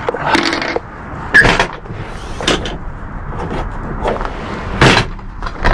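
A scatter of sharp knocks and clicks, about one a second and the loudest near the end, from handling a pickup's lowered tailgate and the rear-door hardware of a commercial camper shell.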